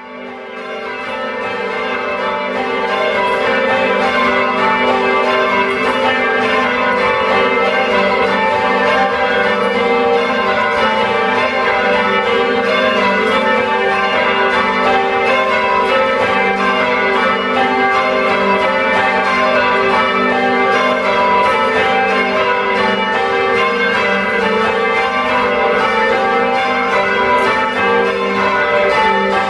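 A ring of four 1922 John Taylor church bells, tenor in G, rung full-circle by a band in English change-ringing style, the bells striking one after another in a steady, continuous sequence. The sound builds over the first few seconds, then holds loud and even.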